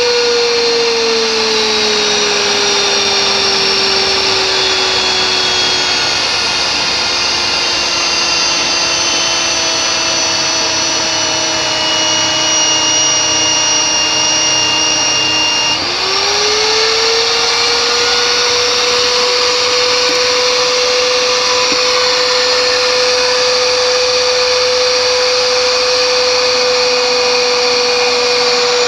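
Electric pipe threading machine running loud and steady with a motor whine. The whine sinks slowly in pitch, then about halfway through dips briefly and climbs quickly back to a higher, steady pitch.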